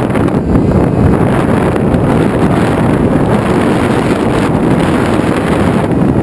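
Loud, steady wind buffeting the microphone of an FPV drone's onboard camera in flight.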